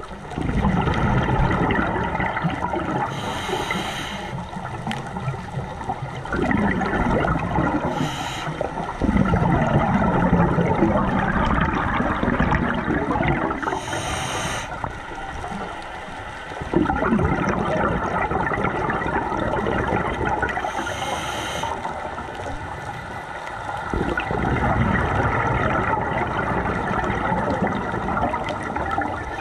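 Scuba diver's regulator breathing underwater: long bubbling, gurgling exhalations, broken by a short hissing inhale about every six seconds, four times.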